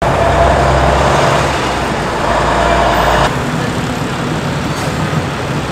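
City street traffic noise with the deep rumble of a heavy vehicle's engine; the sound changes abruptly about three seconds in and the rumble drops away.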